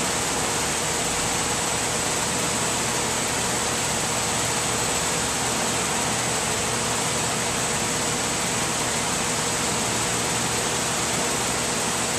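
Steady mechanical hum and hiss of background machinery or air handling, with a faint steady tone.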